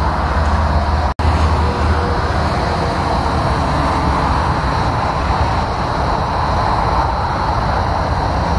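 Steady noise of multi-lane highway traffic: cars and semi-trucks passing at speed, tyre and engine noise with a deep low rumble. The sound cuts out for an instant about a second in.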